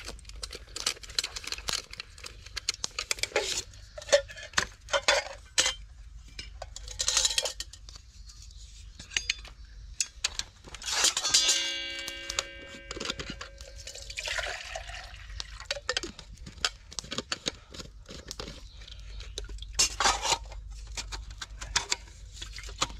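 Metal camp cookware clinking and knocking as a stainless steel water bottle is handled and drawn out of its nesting metal cup and stove set. About halfway through, one clank rings on with a clear metallic tone for a couple of seconds.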